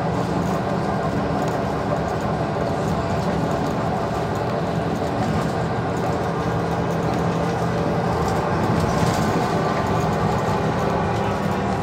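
Van Hool AG300 articulated diesel city bus heard from inside while cruising at speed: a steady engine drone with road and tyre noise, swelling slightly about eight seconds in.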